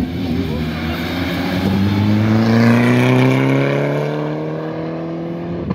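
Rally car engine revving up in one long steady pull as the car passes at speed, loudest about halfway through.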